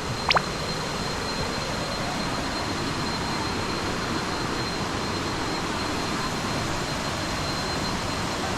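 Steady rushing of a waterfall's cascading water. A thin high tone sounds faintly throughout, and a brief sharp chirp comes just after the start.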